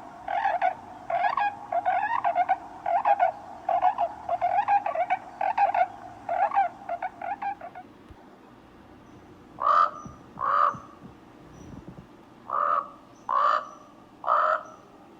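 Bird calls: a quick run of repeated rough notes, about two groups a second, for about eight seconds. After a pause come five louder, separate calls, some in pairs.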